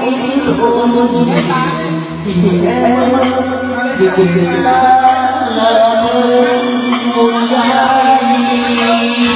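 A man singing karaoke into a microphone over a backing track.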